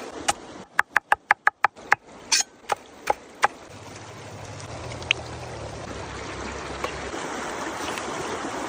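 A quick run of sharp taps or knocks, about six a second, then a few slower ones, followed by a steady hiss like running or pouring liquid that grows louder.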